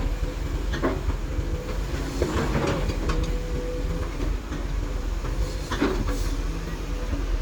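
Excavator's diesel engine running steadily under load while it digs, with several knocks and clanks from the working machine and a held note for a second or two near the middle.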